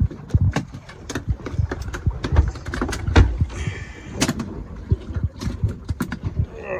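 Freshly landed yellowtail snapper flopping on a boat deck: a fast, irregular run of slaps and knocks, with a hand pinning the fish down near the end.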